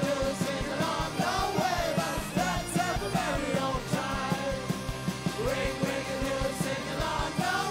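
Irish folk-rock band playing live: a man's singing over acoustic and electric guitars with a steady beat.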